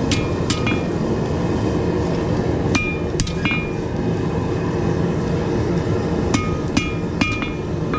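Hand hammer striking a rebar knife blade on an anvil to straighten it: about nine ringing blows in three quick clusters of two or three. A steady loud rushing noise runs underneath.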